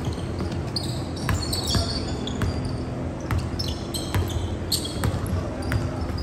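A basketball being dribbled on a hardwood gym floor: irregular thuds echoing in a large hall, mixed with short, high sneaker squeaks on the court.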